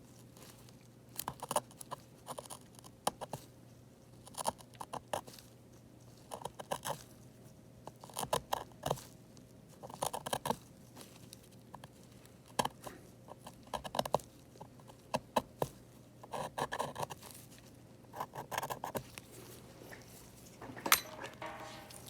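Small metal hand tool scraping and picking at broken screen glass around an iPad's aluminium frame: irregular short scratches, ticks and crunches with brief pauses between them.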